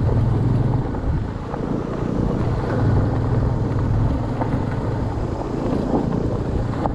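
Motorcycle engine running as the bike rides along a rough dirt trail, with noise from the ride around it. The engine eases off about a second in and picks up again around three seconds.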